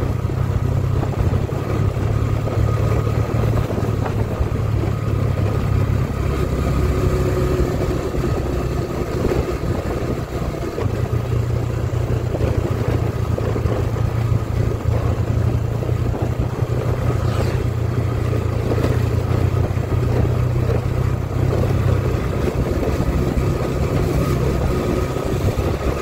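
A Yamaha motor scooter being ridden along at an even speed, heard from the rider's seat: a steady engine and road rumble with no rises or falls, easing off briefly about ten seconds in.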